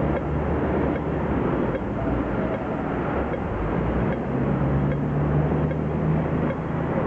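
Busy city street traffic, with car engines running as vehicles pass and a low engine hum building from a little past halfway. Faint ticks of an audible pedestrian crossing signal sound at intervals through it, the slow ticking given while the red man shows.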